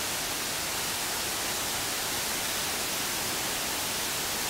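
Agua Azul's waterfall cascades in flood: a steady, even rush of a very large volume of water.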